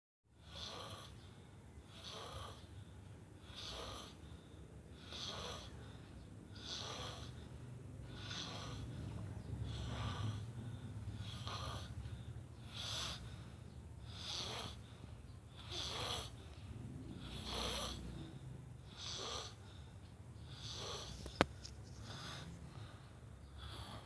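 A man snoring in his sleep, a rasping, wheezy snore repeating about every second and a half over a steady low hum. A single sharp click sounds near the end.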